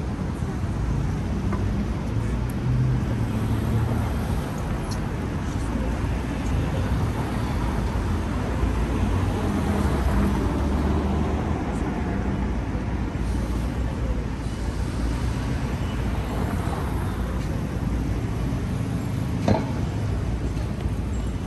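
City street traffic: cars and buses running and passing in a steady low rumble, with one sharp knock near the end.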